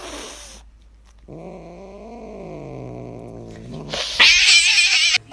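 A tabby house cat giving a long, low, slowly falling growling yowl lasting over two seconds, as an angry warning. Near the end comes a loud hiss of about a second.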